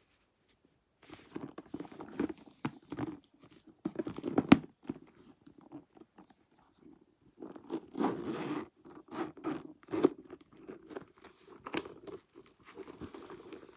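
Hands handling a Coach Mini Sierra leather satchel: irregular rustles, creaks and small clicks from the bag and its metal hardware, with a sharp click about four and a half seconds in. About eight seconds in comes a longer rasp as the metal top zip is pulled open.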